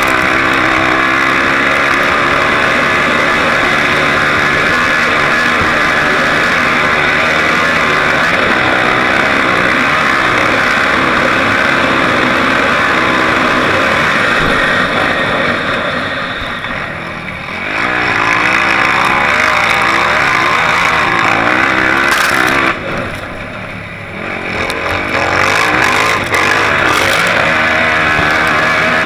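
Off-road vehicle engine running hard at speed, its revs rising and falling over rough sand. The throttle comes off briefly twice, about halfway through and again a few seconds later, before pulling hard again.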